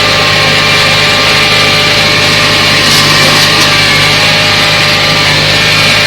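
Claas Arion tractor's diesel engine and the Grimme SE 75-30 potato harvester it pulls, running steadily under load with a constant hum and machinery whine, and a brief clatter about three seconds in.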